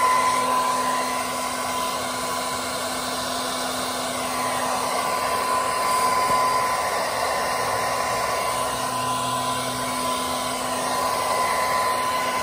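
Handheld hair dryer running steadily, blowing hot air onto freshly applied exhaust repair paste to help it set, its motor giving a steady whine over the rush of air.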